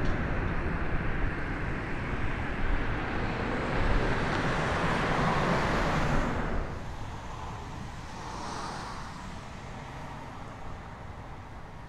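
Embraer Legacy 600 business jet on its landing rollout on a wet runway: the steady rushing noise of its Rolls-Royce AE 3007 turbofans. It cuts off sharply about six and a half seconds in, leaving a much fainter outdoor background.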